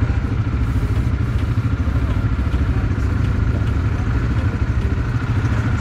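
Quad bike engine idling steadily with a low rumble.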